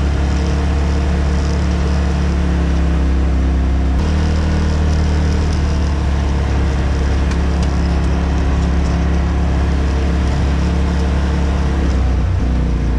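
Polaris RZR side-by-side's engine running steadily under way on a dirt trail, a low droning note whose pitch shifts slightly about four seconds in.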